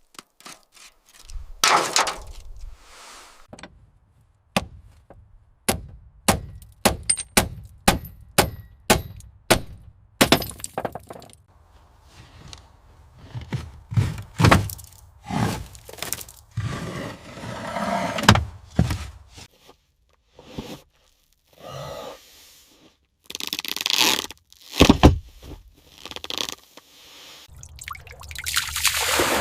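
Hand-work noises on a rusted part: about ten sharp knocks at roughly two a second, then irregular scraping and a few thuds, and a rising rush of noise near the end.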